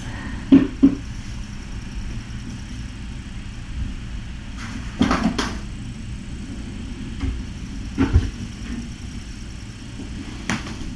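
A few brief knocks and clatters of objects being handled and set down, over a steady low hum in a small room.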